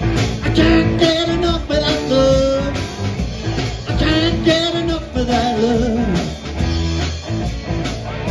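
Live rock band playing a song: electric guitar over bass and drums, with singing.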